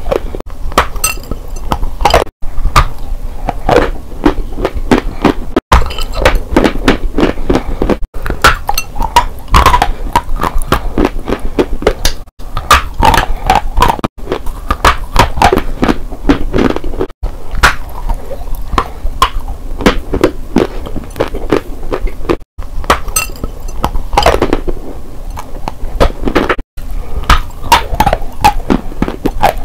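Close-miked biting and chewing of dry chalk blocks: loud, sharp crunches and cracks in quick irregular succession, broken several times by sudden short silent gaps.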